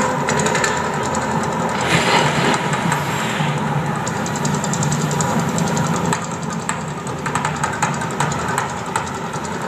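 The Mirage volcano show eruption: a steady low rumble under a hissing haze, with faint crackling.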